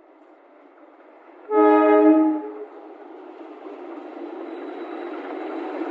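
CC203 diesel-electric locomotive sounding one horn blast about a second long. After it, the locomotive's engine and the train's wheels run steadily louder as the train draws nearer.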